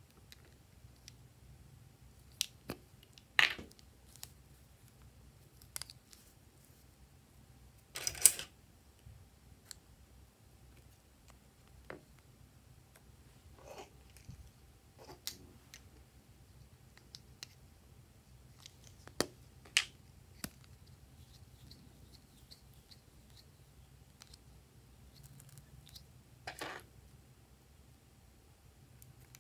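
Scissors snipping through soft sticks, the tips of toy lipsticks and a glue stick, heard as about a dozen separate sharp snips and clicks spread a few seconds apart. The loudest comes about eight seconds in.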